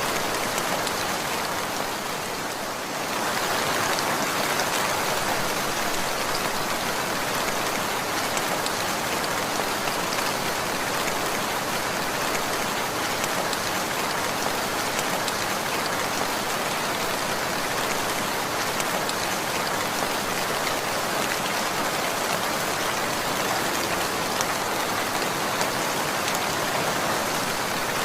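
Steady rain falling and pattering on surfaces, a dense even hiss of many drops, dipping slightly for a moment a couple of seconds in.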